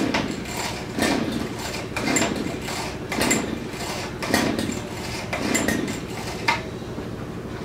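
Pull-start cord of a small gas scooter engine being yanked again and again, about once a second, six pulls, the engine cranking over without catching. A single sharp knock near the end.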